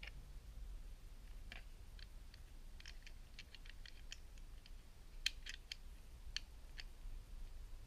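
Small plastic clicks and taps from a plastic toy figure and its parts being handled: an irregular run of them through the middle, the sharpest about five seconds in, over a faint low hum.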